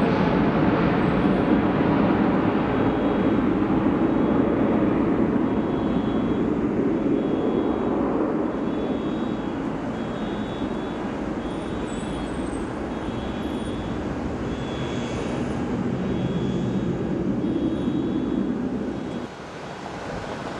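Jet noise from a FedEx Airbus A300-600 freighter's twin turbofan engines as it climbs out after takeoff, a deep steady roar that slowly fades as the aircraft recedes. Near the end it cuts off abruptly to a quieter steady background.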